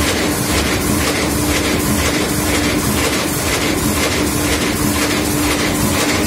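Jacquard carpet looms running: a loud, steady mechanical clatter with a beat about twice a second over a steady hum.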